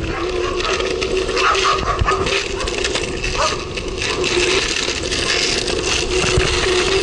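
Longboard wheels rolling on pavement: a steady rumble and hum, with frequent clicks and knocks as the wheels pass over cracks and bumps.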